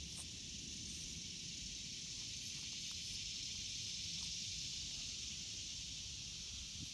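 A steady high hiss with a low wind rumble on the microphone, and a few faint scrapes and clicks of fingers digging a fossil megalodon tooth out of gravelly sand.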